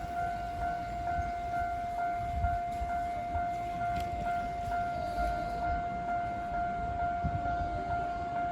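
Japanese level-crossing warning bell ringing: an electronic bell tone repeated quickly and evenly, signalling that the crossing is closing for an approaching train.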